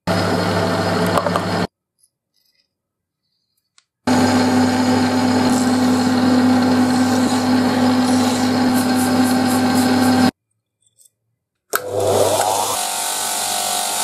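Small metal lathe running with a steady hum, with a file rasping against the spinning steel part, in separate runs broken by silent gaps. Near the end a buffing wheel motor spins up, rising in pitch for about a second, then runs steadily.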